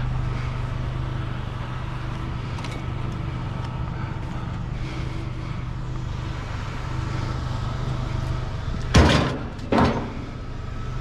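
Vehicle engine idling steadily with a low, even hum. About nine seconds in come two loud clattering knocks, a second apart.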